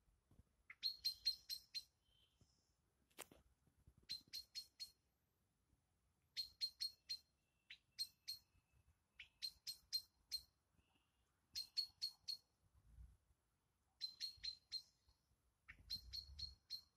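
Faint animal chirping: runs of four or five short, high chirps, all at one pitch, repeated about every two and a half seconds.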